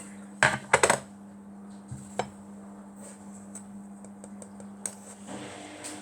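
Kitchen handling noise: a quick cluster of knocks and clinks of dishes or containers being picked up and set down about half a second in, then a few single taps, over a low steady hum.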